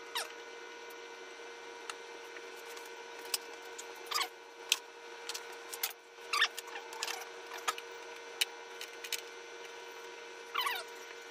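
Hands working plastic and rubber intake pipes and connectors in a car's engine bay: scattered clicks, taps and short squeaky rubs, over a steady faint hum.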